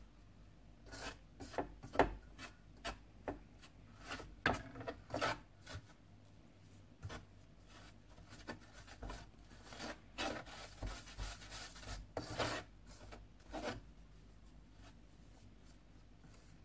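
A hand rubbing ghee into dry flour in a stainless steel bowl: irregular scratchy rasps of fingers and flour against the steel. The strokes come in two busy spells, with quieter stretches between.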